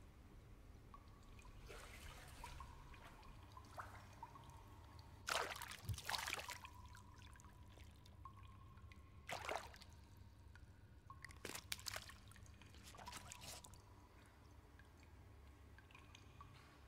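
Quiet pool water: a few small splashes and drips as two swimmers move in the water, over a faint steady tone that comes and goes.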